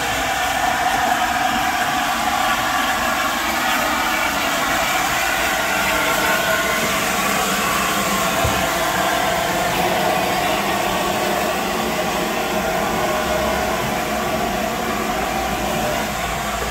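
Steam locomotive hissing: a loud, steady rush of escaping steam that holds level throughout, with no beat of exhaust or wheels.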